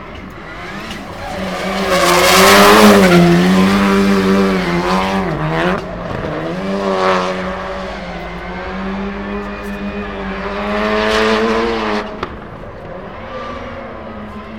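Ford Fiesta rallycross car drifting, its engine held at high revs while the tyres squeal and skid on the asphalt. The tyre noise is loudest about two to three seconds in and again around eleven seconds, and the engine note dips briefly about six seconds in before climbing again.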